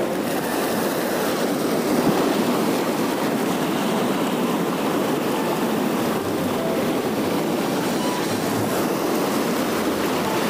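Sea surf breaking and washing over shore rocks, a steady rush of waves.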